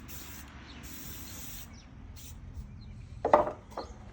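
Aerosol spray paint can (Rust-Oleum Painter's Touch 2X Ultra Cover primer-and-paint) hissing as paint goes on in light coats: one long spray of about a second and a half, then shorter bursts. A brief loud sound a little after three seconds in.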